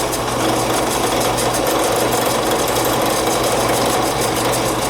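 Drill press running steadily with its bit cutting a pilot hole through a block of scrap steel, a constant motor hum under the grinding of the cut. The steel cuts as if it might be a little hardened.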